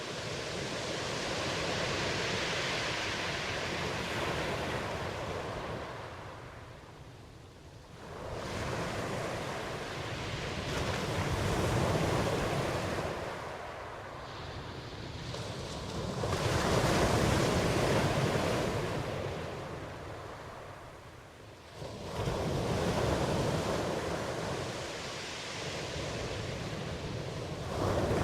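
Ocean surf: waves washing in and drawing back, the rush of water swelling and fading every several seconds.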